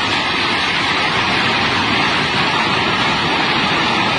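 Flooded Swat River rushing past, a loud, steady roar of fast water with no let-up.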